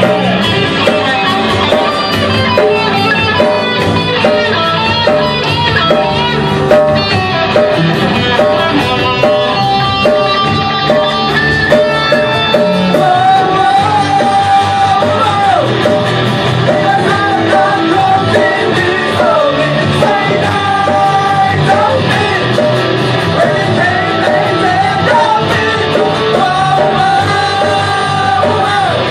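Live rock band playing loud, with electric guitar and drums. A repeating guitar riff leads the first part, and a male singer comes in about halfway through with long held, bending lines.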